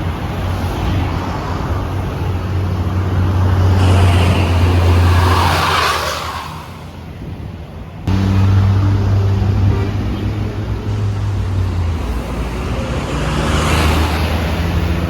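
Tour buses driving past with a steady low engine hum. One passes with a swelling rush of road noise about five seconds in. The sound jumps abruptly about eight seconds in, and another bus passes near the end.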